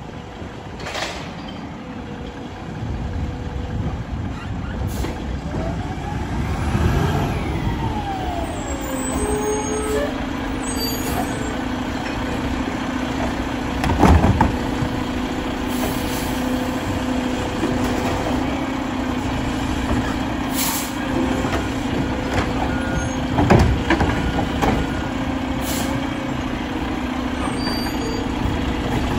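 Mack LR garbage truck with a Labrie Automizer automated side loader pulling up and stopping. Its diesel engine rises and falls in pitch, then settles into a steady hum about nine seconds in while the automated arm reaches out to the cart. Air-brake hiss and two loud knocks, about halfway through and again near three-quarters.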